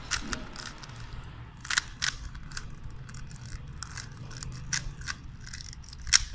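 Rubik's Cube being scrambled by hand: its plastic layers twisted quickly, giving a run of irregular clicks and clacks, the loudest about two seconds in and just before the end.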